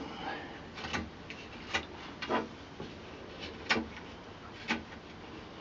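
Knife whittling the end of a wooden walking-stick shank: about five short, crisp slicing cuts, roughly one a second, rounding the end down to fit a horn handle.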